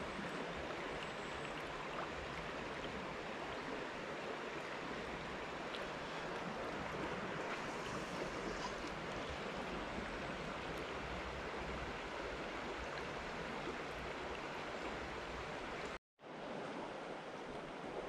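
Steady rush of river water flowing over a rippled, shallow stretch. The sound cuts out for a split second near the end, then carries on.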